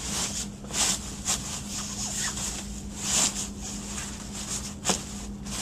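Rustling and swishing of a padded playard mattress pad being handled and pressed down into a bassinet, in irregular strokes, the loudest about three seconds in and near the end. A faint steady low hum runs underneath.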